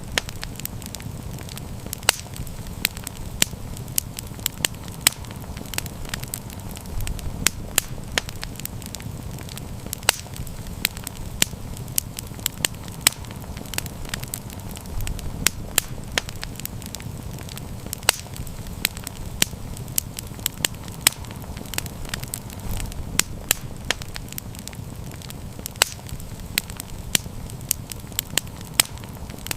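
Campfire crackling, with frequent sharp pops scattered irregularly over a steady low rumble of the flames.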